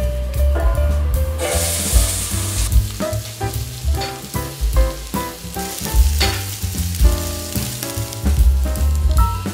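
Sliced onions hitting hot olive oil in a pot: a burst of sizzling about a second and a half in, then steady frying, over background music with a beat.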